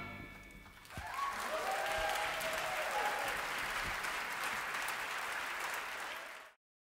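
A big band's last chord dies away, then a concert audience breaks into applause, with voices whooping and cheering over it in the first couple of seconds. The applause cuts off suddenly near the end.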